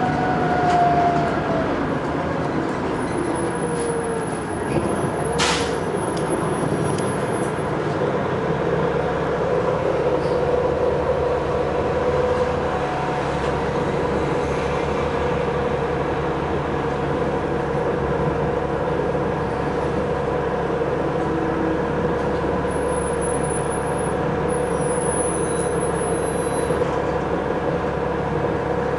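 A 1997 Neoplan AN440 transit bus's CNG engine and drivetrain running as the bus drives, heard from inside the passenger cabin: a steady mechanical drone with a whine in it. The pitch falls in the first second, there is a brief sharp click about five seconds in, and a steady whine holds from about eight seconds on.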